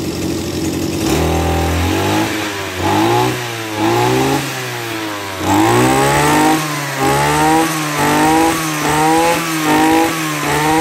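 Maruyama MBS320 brush cutter's 32cc two-stroke engine idling, then revved repeatedly from about a second in: the throttle is blipped up and let back down roughly once a second, the engine note rising and falling each time.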